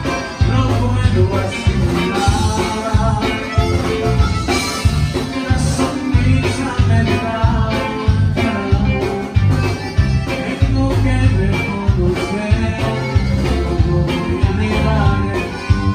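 Live conjunto band playing dance music, with a steady bass beat under guitar and melody lines.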